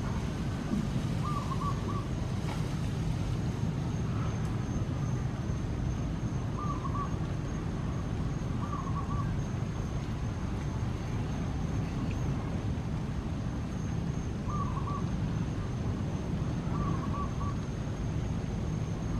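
Steady low outdoor rumble with a bird's short warbling call repeating about five times, plus a faint steady high-pitched whine.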